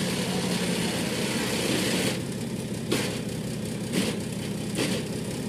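Recovery truck's engine running steadily as it tows a tram by a chain, with a few sharp clanks about three, four and five seconds in.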